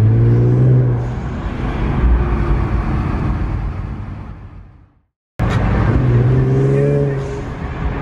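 Infiniti's twin-turbo V6 engine running under way, heard from inside the cabin. The sound fades out to silence about five seconds in, then the engine cuts back in suddenly.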